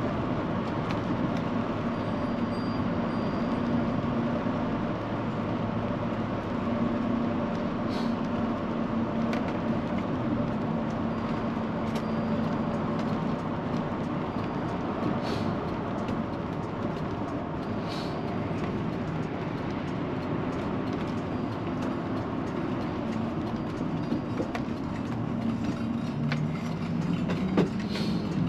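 Motorhome driving, heard from inside the cab: a steady engine drone and road rumble, with a few sharp clicks or rattles now and then. The engine note shifts near the end.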